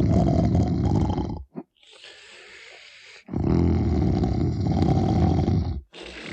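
Br'er Bear's recorded snoring, a theme-park ride sound effect: a long, deep snore, then a softer, breathy exhale, then a second deep snore a few seconds later.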